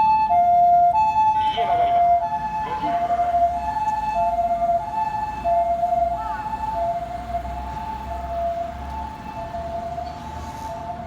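Japanese ambulance's two-tone "pii-poo" siren in its quieter residential-area mode, alternating steadily between a higher and a lower tone. It grows fainter as the ambulance moves away.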